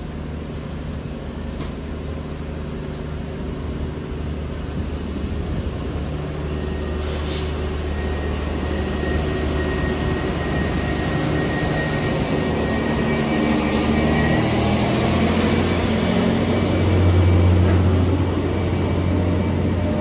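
Class 769 Flex bi-mode unit pulling away under its diesel engines: a low engine drone that grows steadily louder as the train passes, loudest a little after three-quarters of the way in. A faint whine rises in pitch about two-thirds of the way through.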